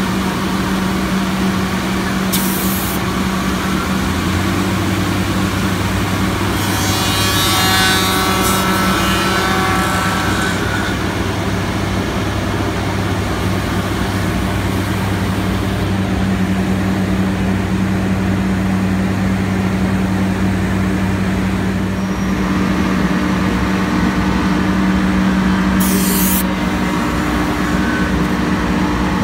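Soukup Crafter angular CNC woodworking machine running while tenoning and profiling hardwood window-sash parts: a steady motor hum, with a louder stretch of cutting about seven to ten seconds in. Two short sharp hisses come through, one near the start and one near the end.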